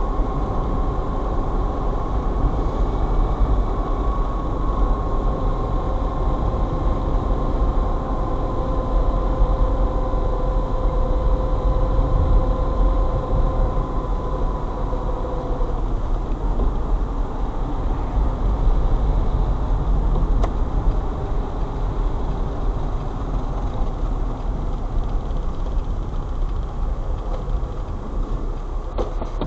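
Car driving on a snowy, slushy road, heard from inside the cabin: a steady low rumble of engine and tyres, with a faint whine that slowly drops in pitch and fades out about halfway through.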